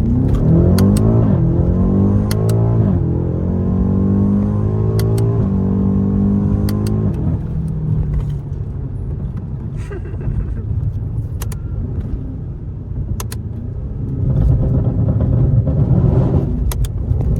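BMW M8 Competition's twin-turbo V8 accelerating hard, its pitch climbing and dropping back with several quick upshifts over the first seven seconds. Then the throttle eases and a lower engine and road rumble runs on, swelling again near the end.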